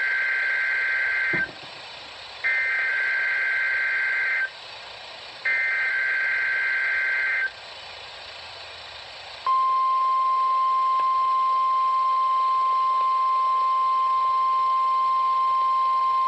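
NOAA Weather Radio Required Weekly Test signal: three SAME digital header bursts, each about two seconds long with a second's gap between them. About nine and a half seconds in, the steady 1050 Hz warning alarm tone starts and holds, with radio hiss beneath.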